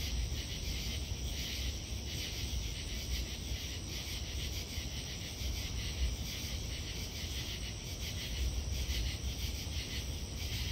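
Late-summer night insect chorus: a steady, dense high-pitched trilling of crickets and katydids, with irregular clicks from a greater anglewing katydid calling.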